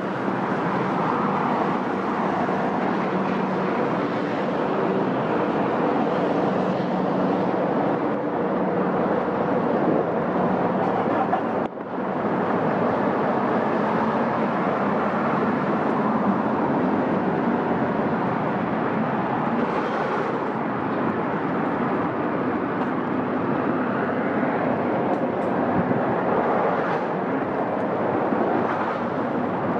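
Steady rain falling on a city street, a continuous wash of noise, with the low hum of passing traffic underneath. The sound drops out for a moment about twelve seconds in.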